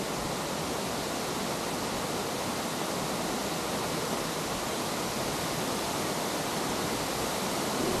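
Waterfall: falling water making a steady, even rush.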